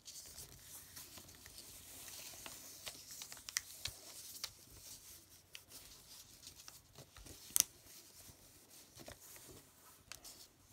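Faint paper rustling and crinkling as hands fold and press creases into a sheet of paper, with scattered soft ticks and one sharper tick about seven and a half seconds in.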